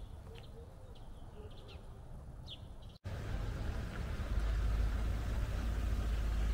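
Small birds chirping a few times over quiet background. About three seconds in, the sound cuts to a steady low rumble with hiss that grows a little louder a second later.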